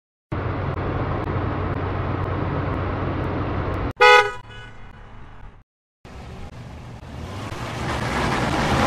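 Separate car sound effects in a row. First, a steady car driving noise. About four seconds in, it cuts to one short car horn honk that dies away. After a short gap comes a car's rushing noise, growing steadily louder.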